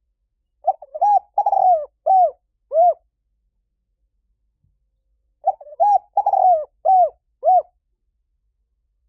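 Spotted dove cooing: two phrases of about five coos each, the phrases a few seconds apart.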